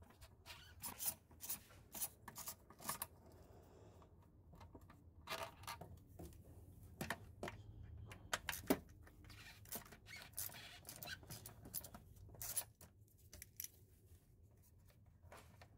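Faint, scattered clicks and scraping of a socket wrench on an extension loosening the 10 mm bolts that hold an intake resonator, in short irregular runs.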